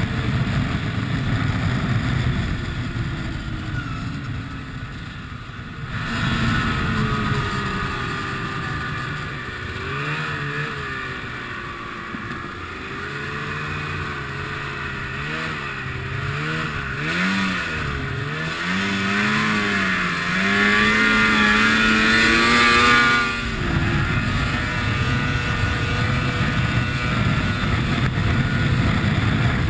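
Ski-Doo MXZ snowmobile engine under way, its pitch rising and falling again and again as the throttle is worked, climbing highest a little after twenty seconds in and then dropping off suddenly. Before and after, a steady rush of engine and track noise.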